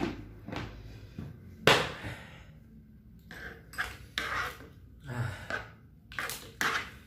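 Kerupuk crackers crunching as they are chewed, heard as short crisp crunches at irregular intervals, the loudest about two seconds in.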